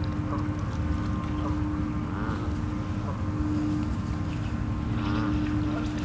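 Canada geese giving a few short, scattered honks over a steady low rumble with a constant hum.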